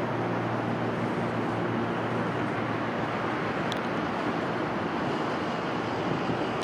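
1971 Cessna TU206F Turbo Stationair's turbocharged six-cylinder engine and propeller droning as the plane climbs away after takeoff. Its pitched hum fades within about the first second into a steady rushing noise.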